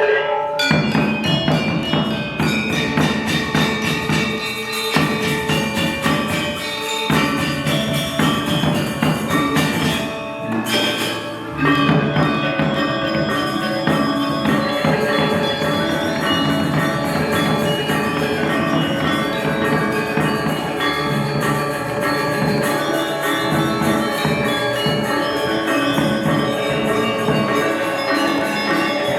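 Balinese gamelan ensemble playing: interlocking bronze metallophones and gongs with drums. The music briefly softens about ten seconds in, then comes back in full.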